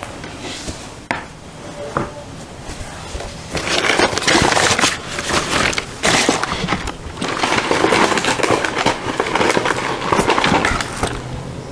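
Loud crackling and rustling of crumpled paper and wrappers being handled close to the microphone, coming in long bursts from about a third of the way in.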